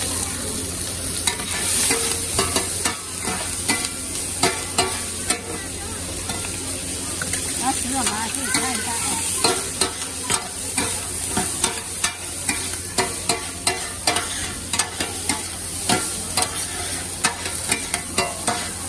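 Meat and vegetables sizzling on a flat griddle, with metal spatulas scraping and clacking against the plate many times as they are stir-fried.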